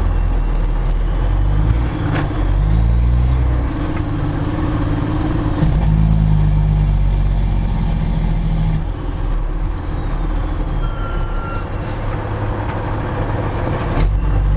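Diesel engine of a loaded Kenworth logging truck pulling through the gears, its pitch stepping up over the first several seconds. About nine seconds in the engine eases off and a faint falling whistle follows.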